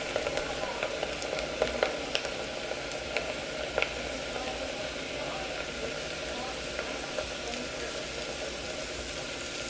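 Potato fries frying in a pot of hot coconut oil: a steady sizzle with a few scattered pops.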